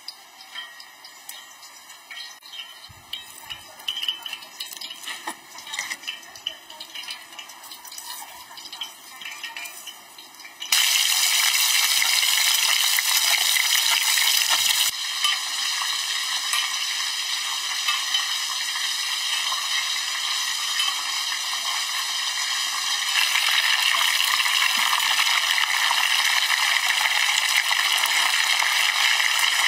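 Light taps and clinks of seasoning a whole fish from small bowls, then, about a third of the way in, an abrupt switch to a loud, steady sizzle of a whole fish frying in hot oil in a wok.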